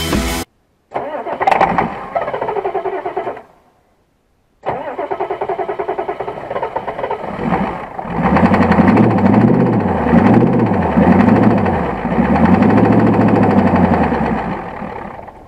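A long-dormant 1985 Ford F350's 6.9 IDI diesel V8 being cranked over by the starter in short, separate attempts. About eight seconds in it catches and runs for several seconds, its engine speed rising and falling unevenly, then fades out.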